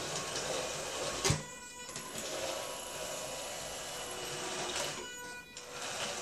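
Small electric drive motors of a homemade robotic wet mop whirring steadily as it maneuvers, with one sharp knock about a second in. The whirring drops out briefly twice.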